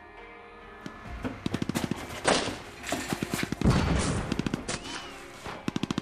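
Rapid automatic gunfire in several volleys, with the heaviest, densest bursts in the middle.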